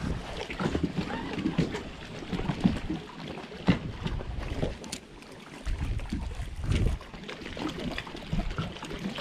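Wind buffeting the microphone in uneven gusts. A few sharp knocks of handling noise from the rod and reel are heard, the clearest one a little under four seconds in.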